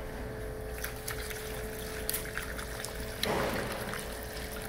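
Non-toxic antifreeze pouring from a plastic gallon jug into a funnel on a plastic water tank, with a louder rush of liquid about three seconds in.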